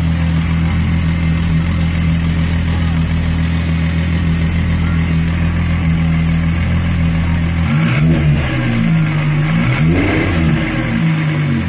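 Volkswagen Mk3 VR6 narrow-angle V6 engine idling steadily, then revved up and back down twice in quick succession near the end.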